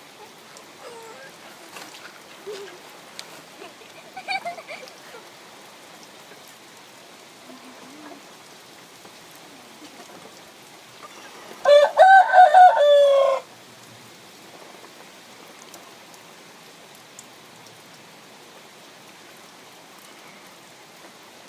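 A rooster crows once, loudly, about twelve seconds in: a single crow of nearly two seconds. Before it come a few faint short chicken calls, over a steady background hiss.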